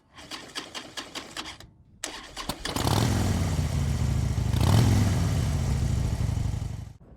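Motorcycle engine being started: a rapid run of clicks, then after a short break the engine catches and runs, with a brief rise in revs near the middle before the sound cuts off abruptly.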